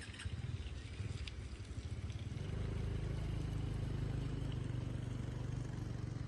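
A motor vehicle engine running steadily, coming in about two and a half seconds in, after outdoor noise with scattered clicks.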